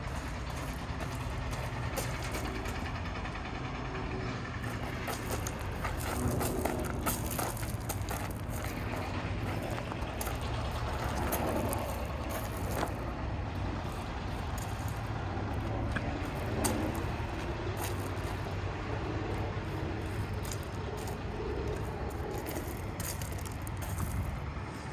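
Steady low rumble of vehicles with an even background hiss, broken by a few light clicks.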